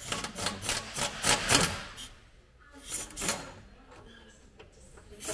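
Clicking and clattering of hand tools on the mounting bolts of a car's rear differential as they are undone, in two spells with a quieter pause between.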